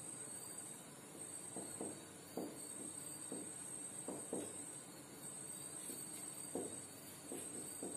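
Marker writing on a whiteboard: faint, irregular short strokes as letters are drawn, over a constant high-pitched background hiss.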